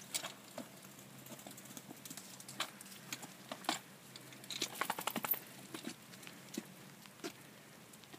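Small three-wheeled kick scooter rolling and rattling over a wet concrete path, along with the rider's kicking steps: scattered light clicks and taps, with a quick run of rattling clicks about halfway through.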